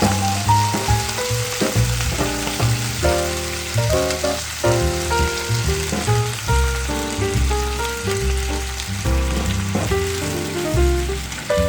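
Food sizzling as it is stir-fried in hot oil in a pan, a steady hiss, under a melodic backing track with a bass line.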